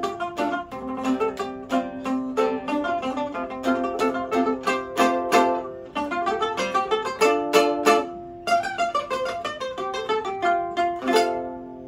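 Two tỳ bà lutes playing a duet in fast, rapidly repeated plucked notes. There is a short break about eight seconds in, then the closing notes stop near the end and ring away.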